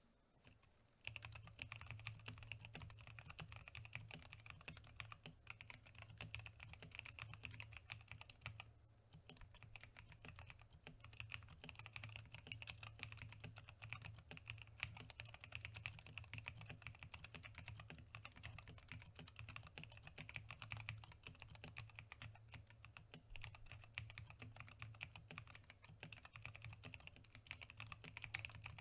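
Mechanical keyboard being typed on fast and continuously, a dense patter of key clicks and thocks that starts about a second in and pauses briefly near the middle.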